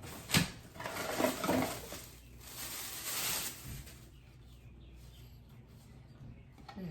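A sharp click, then rustling and scraping as a light bulb is unpacked and handled, with a second hissing rustle of packaging about three seconds in; quiet after that.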